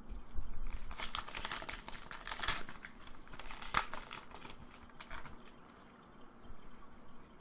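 Foil wrapper of a Pokémon booster pack crinkling and tearing as it is opened by hand. The crinkling is densest for the first few seconds, then thins to a few lighter rustles.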